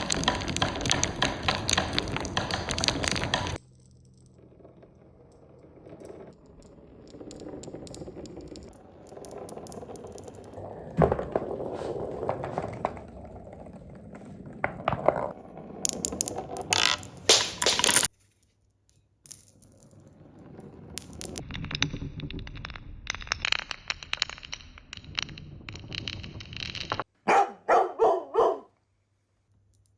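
Marbles rolling and clattering along a marble run in several separate stretches, with a dense rattle of many marbles at the start, sharp clacks of marbles striking the track, and abrupt stops. Near the end come four short, loud bursts.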